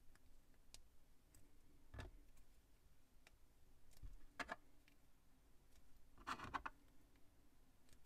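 Faint clicks of small plastic Plus-Plus pieces being handled and snapped together: a few single clicks, then a quick cluster of several about two-thirds of the way through.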